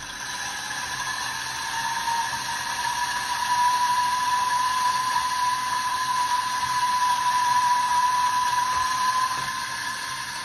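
Timemore Sculptor 078 electric coffee grinder grinding a dose of beans at 1100 RPM: a steady high-pitched whir over a grinding hiss. It grows louder over the first few seconds, and the main tone drops away near the end.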